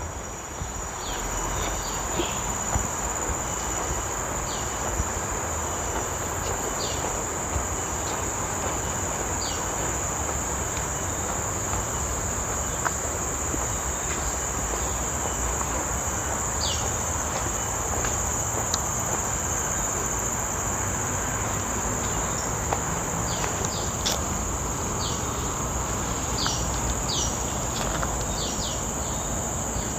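Steady high-pitched drone of forest insects, with short chirps scattered through and a steady low noise underneath.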